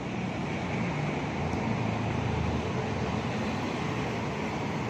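Steady hum of city street traffic, swelling a little in the middle as a vehicle goes by.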